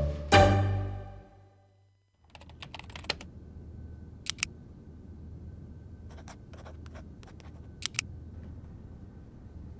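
Typing on a computer keyboard in short runs of key clicks, with a couple of sharper doubled clicks, over a low steady hum. Music fades out in the first couple of seconds.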